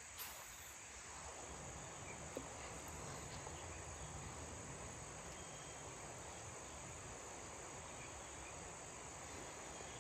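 Faint, steady insect chorus, with a single small click about two and a half seconds in.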